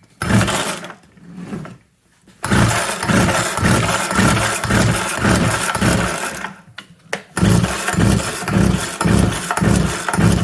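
Two-stroke chainsaw engine on full choke, pull-started: a first pull, then it catches and runs unevenly for about four seconds, dies, and catches again for another three seconds, pulsing about three times a second as it runs.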